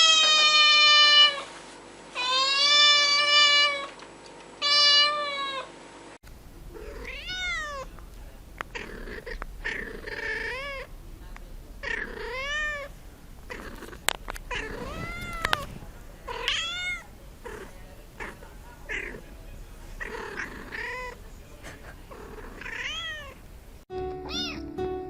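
Cats meowing: three long, loud meows in the first six seconds, then a run of shorter, quieter meows about once a second.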